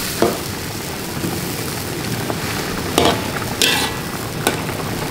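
Metal spatula stirring and scraping in an aluminium wok of milkfish in simmering sauce, over a steady hiss of the food cooking. Four sharp scrapes or clinks against the wok stand out: one just after the start, then three in the second half.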